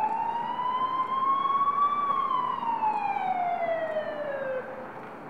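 Emergency vehicle siren wailing: a slow rise in pitch for about two seconds, then a slow fall, cutting off suddenly near the end, over a steady street hiss.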